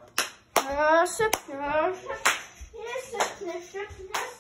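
Sharp hand claps about once a second, with a person's voice sounding between them.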